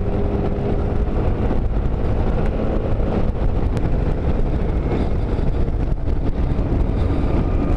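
Motorcycle engine running at a steady cruise while riding, mixed with wind buffeting the microphone.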